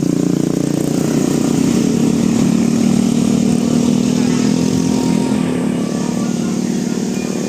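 A heavy vehicle's engine runs steadily close by, a little louder around the middle and easing off near the end.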